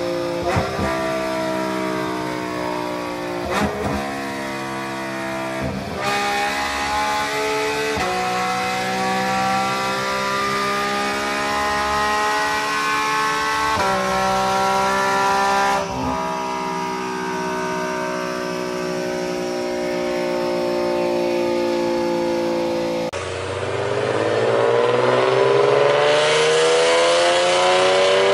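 Porsche 911 GT3 (992) flat-six pulling hard on a chassis dyno, its pitch climbing slowly through each gear and dropping sharply at each upshift, several times. About 23 seconds in, a Nissan 370Z's V6 takes over, revving up steadily under load.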